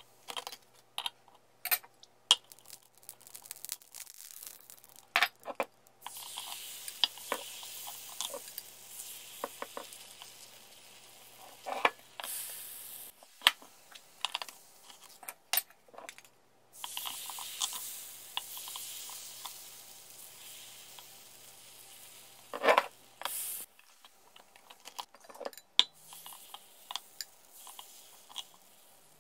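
Metal knife and utensils clicking and scraping on an electric waffle iron's non-stick plates, with two long stretches of sizzling hiss from the hot iron cooking waffle batter. A steady low hum runs under much of it, and one sharp knock stands out near the three-quarter mark.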